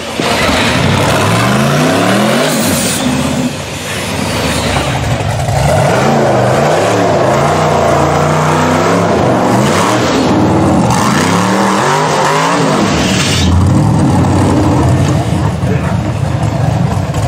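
Rock bouncer buggy engine revving hard over and over, its pitch rising and falling with each rev as it climbs. In the last few seconds it holds a steadier, high note.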